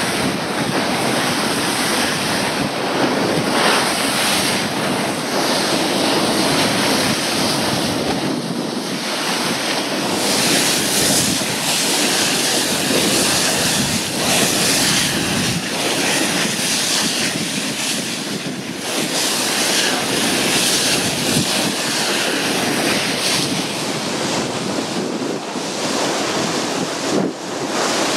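Steady wind buffeting the microphone over the rush of sea water along the hull of a moving passenger boat.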